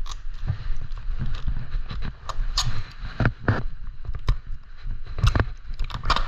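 Irregular clicks, knocks and rustling of a bike chain's packaging being handled and worked open by hand, over a low rumble of handling noise.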